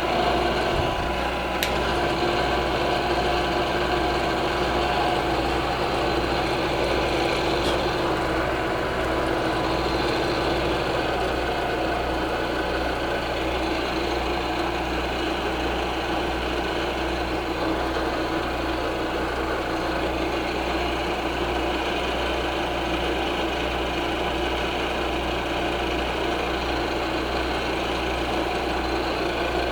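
Milling machine running with its cutter taking a steady cut across one flat of an aluminium part under power feed, a constant machine drone with several steady tones.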